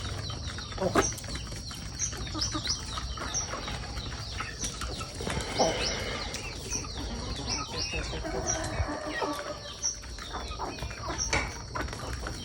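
Chickens clucking now and then, with small birds chirping about once a second and a steady high whine behind them.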